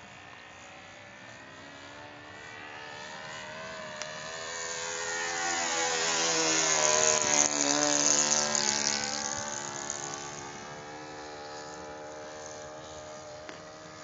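Saito 82 four-stroke glow engine and propeller of a Seagull Super Decathlon model plane at high revs making a close pass: the engine note grows louder, peaks about seven and a half seconds in with a drop in pitch, then fades away.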